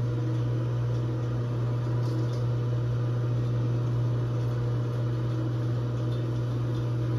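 Honeywell 802360JA zone valve power head motor humming steadily at a low pitch, powered but not turning: the ball valve it drives is frozen.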